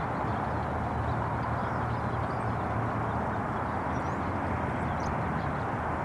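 Steady outdoor background rumble with faint, short, high bird chirps scattered through it.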